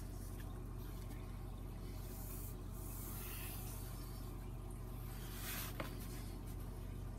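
Red pencil drawn along a stainless steel ruler on foam core board: two faint strokes, about two and a half and five and a half seconds in, the second ending in a light click, over a steady low hum.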